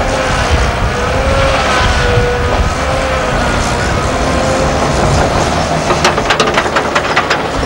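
Diesel earthmoving machinery working: an articulated dump truck driving off loaded and a crawler loader pushing soil, their engines running steadily with a wavering whine. A quick run of clanks comes near the end while the loader pushes the dirt.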